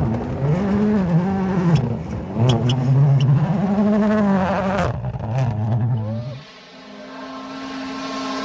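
A motor vehicle engine, its pitch swinging up and down with a few sharp clicks. Near the end it drops away and is replaced by a steadier note that slowly rises.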